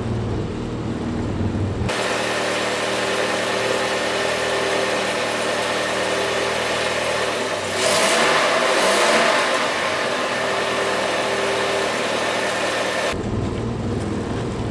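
Alfa Romeo Spider engine running during a short test drive after a brake caliper replacement, with a louder surge of revving about eight seconds in.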